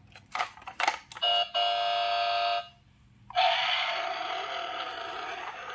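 Battery-powered toy ambulance playing electronic sound effects through its small speaker as its roof buttons are pressed: a few button clicks, a steady electronic tone for about a second and a half, then after a short gap a longer, noisier electronic effect that slowly fades.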